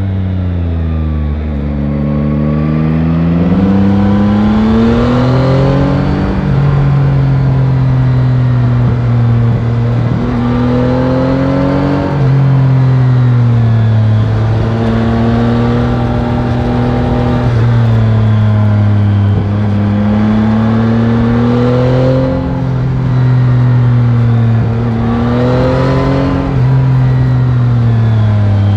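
Yamaha Tracer 9 GT's 890 cc CP3 inline three-cylinder engine, on its stock exhaust, under way. It accelerates and backs off repeatedly, the pitch falling at first, then climbing and dropping several times, with abrupt steps in pitch at gear changes.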